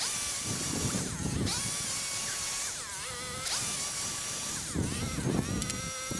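Chainsaw running under load, its engine pitch dipping and recovering several times as it bites into the wood.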